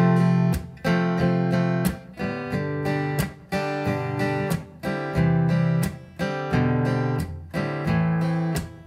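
Steel-string Martin acoustic guitar strummed in a steady rhythm, several strokes a second, through a chord sequence: F over C, G, C, C over B, A minor, C over G.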